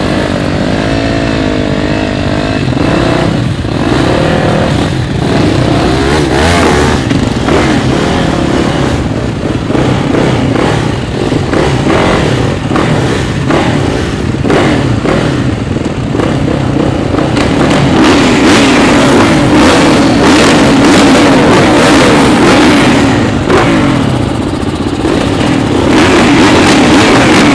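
Motocross bikes racing, their engines revving up and down with several overlapping at once, louder for the last third or so.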